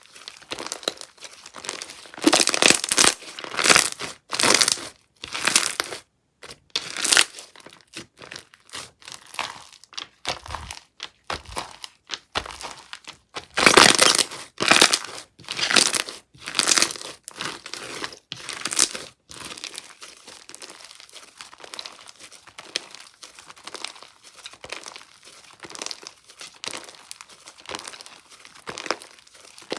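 Cream-block slime being squeezed, pressed and stretched by hand, giving crackling, crinkly popping sounds in irregular bursts; loudest a couple of seconds in and again around the middle, softer and more continuous toward the end.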